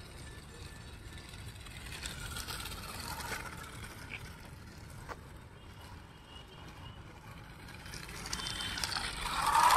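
Homemade RC car's 775 brushed DC motor and plastic gears running as it drives, wheels rolling on concrete. The sound grows louder near the end as the car comes close.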